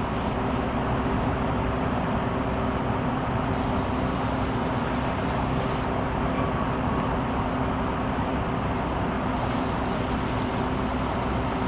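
An engine running steadily, a constant drone with a steady hum.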